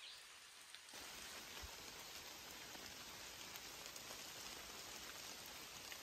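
Faint, steady rain falling through the woods, an even hiss that sets in about a second in.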